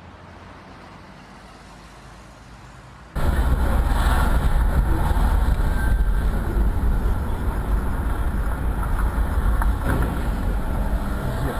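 Vehicle noise: a quiet low hum, then about three seconds in an abrupt jump to a much louder, steady low rumble with a hiss over it, as of a vehicle on the move.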